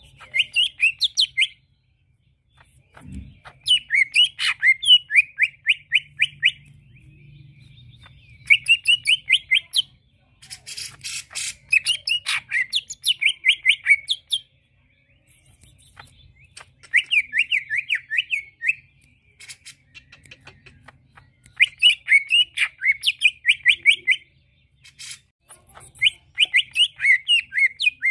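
Cucak ijo (greater green leafbird) singing in short bursts of rapid, repeated chirping notes, about seven phrases of a second or two each with pauses between. It is the song used as a lure to draw other cucak ijo into answering.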